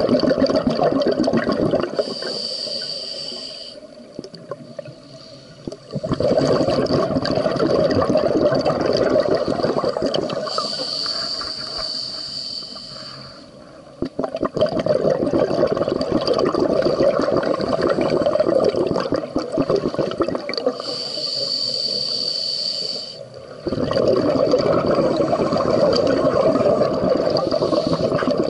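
Scuba diver breathing through a regulator underwater: a short hissing inhale followed by a long burst of bubbling exhale, repeating slowly, about three full breaths.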